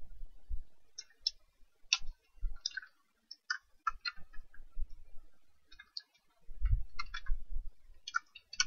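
Typing on a computer keyboard: a run of uneven key clicks with short pauses between them.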